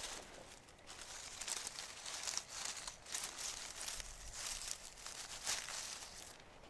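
Dry fallen leaves crackling and rustling as a gloved hand works through the leaf litter to pick a young wild plant, in a run of irregular crinkly bursts.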